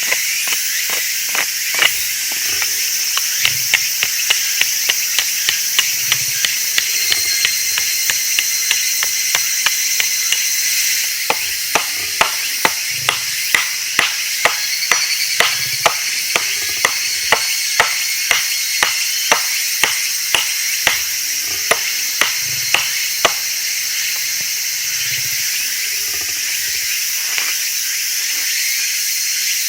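Insects chirring steadily in a late-summer forest, with a long run of sharp knocks, about two to three a second, that stops about three quarters of the way through.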